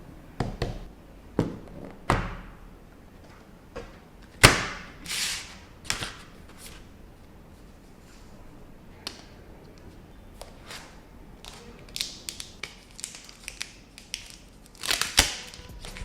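Scattered taps, clicks and knocks as a smartphone's retail box and packaging are handled and opened, with short rustling swishes between them. The loudest knocks come about four and a half seconds in and again near the end.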